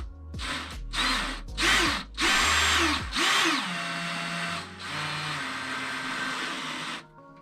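Power drill driving screws into a wall: several short trigger bursts, each rising and falling in pitch, then a longer steady run that stops suddenly about seven seconds in.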